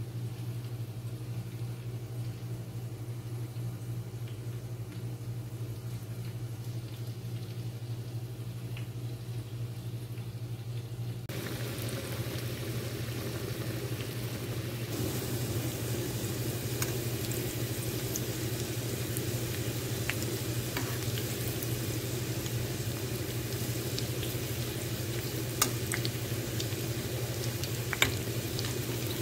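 Sliced onion deep-frying in a pan of hot oil: a steady sizzle that starts abruptly about eleven seconds in, over a low steady hum. Near the end a slotted spoon stirs the onions, knocking twice against the pan.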